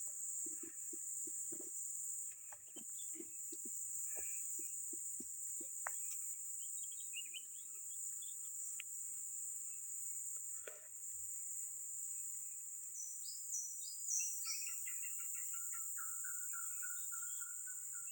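Steady, high-pitched chorus of field insects. A few soft clicks and taps come in the first half. About two-thirds of the way in, some short chirps are followed by a steady lower trilling call that carries on.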